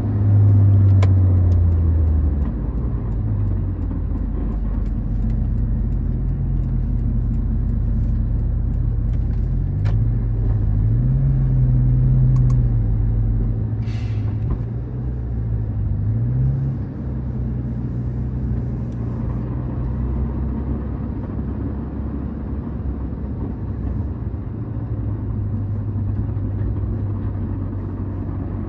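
Porsche 911 GT3 RS (991.2) 4.0-litre flat-six heard from inside the cabin while driving at low speed, its note rising and falling a few times with the throttle and then holding steady. A brief hiss comes about halfway through.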